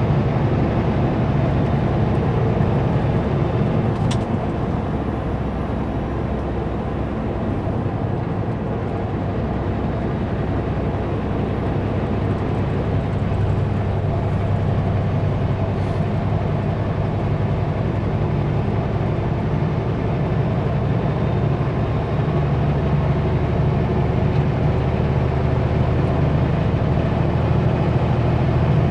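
Kenworth W900L semi truck's diesel engine running steadily under way, a continuous low drone mixed with road and tyre noise, heard from the cab. A light click about four seconds in.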